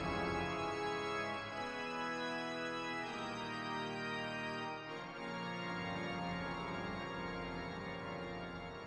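Pipe organ playing slow, held chords that change every second or two, growing quieter near the end.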